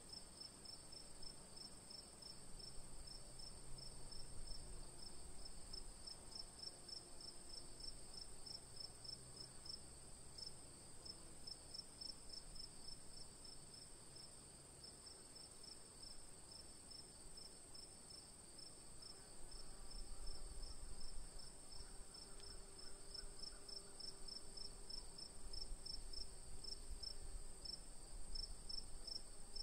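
Crickets chirping faintly: a quick, evenly spaced run of high chirps over a steady high-pitched trill.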